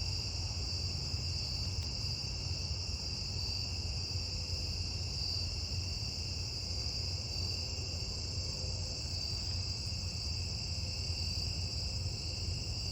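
Steady chorus of night insects, a continuous high trilling, with a low steady rumble underneath.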